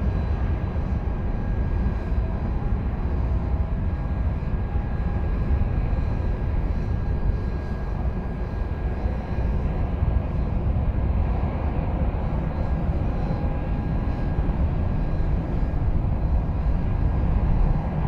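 Airbus A380 four-engined jet on landing approach: a steady low rumble of jet engine noise, slightly louder toward the end.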